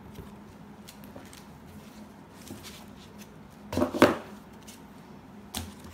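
Plastic L-holder folders being handled: soft rustling and light clicks, with a brief sharp clatter about four seconds in and a smaller knock near the end.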